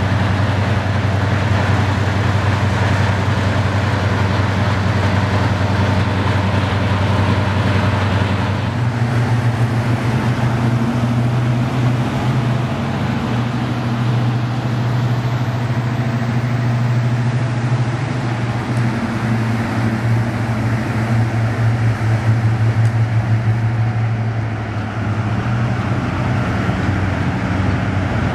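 Napier Deltic two-stroke diesel engines of Class 55 Deltic locomotives running loudly as a Deltic-hauled train pulls out, with the engine note changing about eight seconds in and coaches rolling past near the end.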